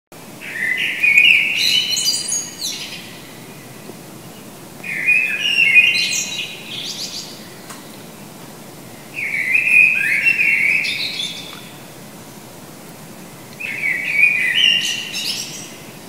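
A songbird singing the same short phrase four times, each about two seconds of quick high notes that step upward, with a pause of two seconds or so between phrases. The song echoes off the walls of an enclosed courtyard.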